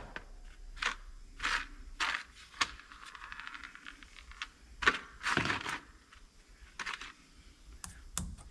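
Small metal clicks and clinks as tiny screws are handled and driven into the mag base with a screw-holding screwdriver, with a short run of fine rapid ticks about three seconds in.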